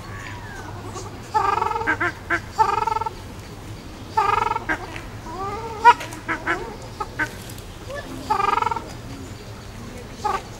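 Ruddy shelducks giving repeated nasal honking calls, in short runs of one to three calls every couple of seconds, with one sharp click about six seconds in.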